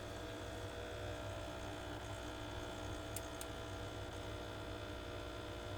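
Francis Francis X6 Trio espresso machine's pump humming steadily while pulling a shot of espresso.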